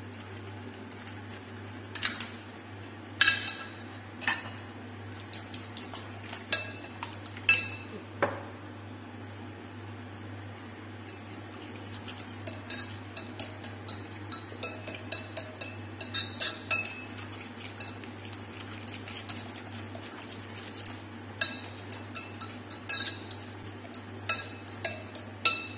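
A spoon clinking against a glass bowl as egg is beaten into a wet potato and herb mixture: scattered single knocks at first, then quick runs of taps with pauses between.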